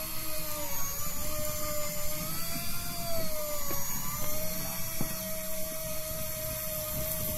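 Electric fishing reel motor winding line in under load from deep water, a steady whine that wavers a little in pitch, over a low rumble.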